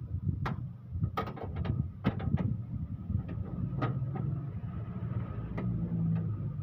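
Irregular metallic clicks and clinks of hand tools working at the front of a 2L engine while its timing belt is being removed, over a steady low rumble.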